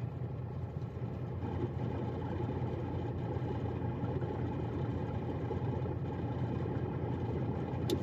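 Freightliner Coronado semi-truck's diesel engine idling with a steady, even low hum, heard from inside the cab.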